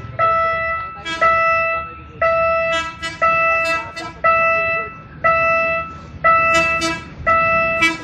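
Railway level-crossing warning signal ringing a repeated ding about once a second while the barrier is down.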